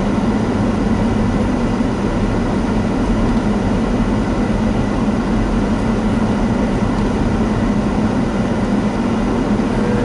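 Steady in-cabin running noise of a Daihatsu Rocky 4WD on a snow-covered road: a low, even rumble of tyres and engine with no change in pace.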